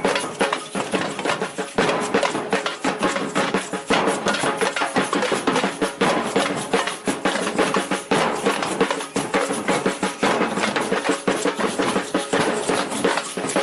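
Batucada samba percussion ensemble playing: a dense, continuous rhythm of many drum strokes.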